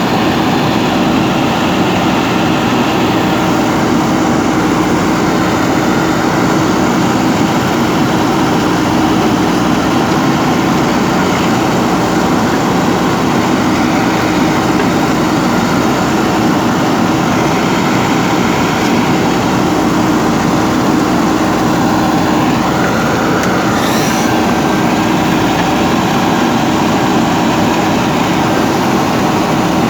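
A JCB backhoe loader's diesel engine running steadily at working speed, with a short rising whine about three-quarters of the way through.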